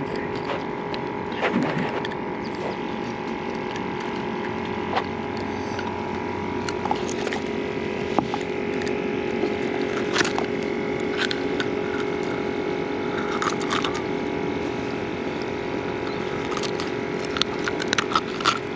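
A steady hum made of several held pitches, with scattered light clicks and taps as a snapper is handled and unhooked with a plastic hook-removal tool.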